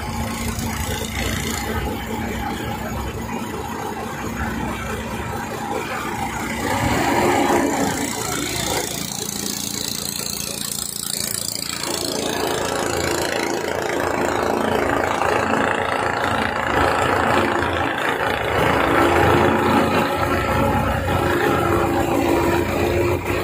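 River ferry's engine running steadily under way, heard from on board.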